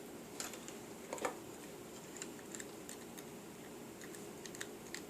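Faint, scattered clicks and light taps of hands working wires and small tools at a soldering job, the loudest a little under a second in, over a steady low hum.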